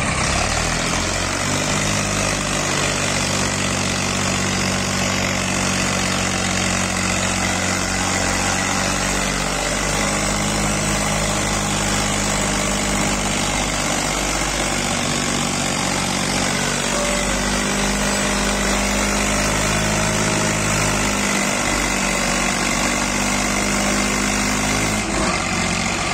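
Massey Ferguson tractor's diesel engine running steadily under heavy load as it hauls an overloaded trolley through deep mud, the pull heavy enough to lift its front wheels. The engine note dips briefly twice, about ten and twenty-one seconds in.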